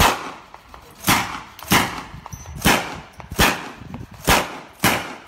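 Bren light machine gun firing .303 rounds as seven separate single shots, about one a second, each a sharp crack with a short echo after it.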